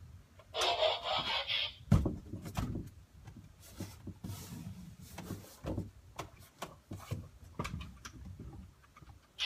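Feet hit a wooden door with a sharp thump as a man kicks up into a handstand against it, followed by smaller knocks and rubbing as his feet and body shift on the door. A loud hissing rush comes just before the thump.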